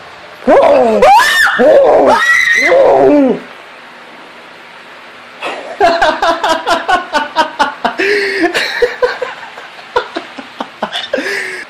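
A person screaming in fright, loud and high with rising and falling pitch, for about three seconds. After a short pause, a long run of short, rapid cries, about five a second.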